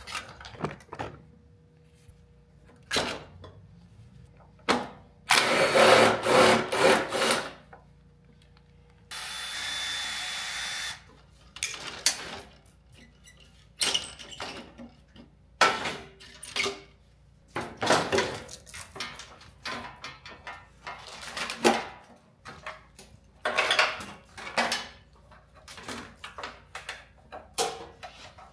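Tools at work taking apart a car: scattered clicks, clanks and rattles of tools and metal parts. A power tool runs for about two seconds starting about five seconds in, then a steady, even run of about two seconds follows about nine seconds in.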